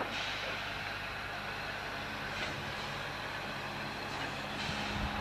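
Hunslet 0-6-0ST saddle tank steam locomotive pulling away, its chimney exhaust giving a few slow, well-spaced chuffs a couple of seconds apart.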